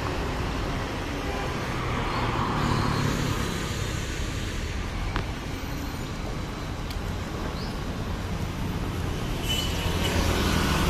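Street traffic: a steady rumble of passing car and motorbike engines, growing a little louder near the end, with one short click about halfway.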